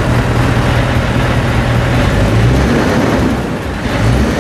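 Scania 580 V8 truck engine idling, heard close to its side exhaust outlet: a steady low rumble just after start-up, with a brief dip near the end.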